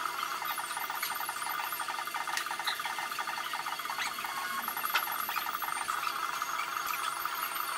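Background music: a quick, even run of repeated notes over a held high tone, with a light click or two of tableware.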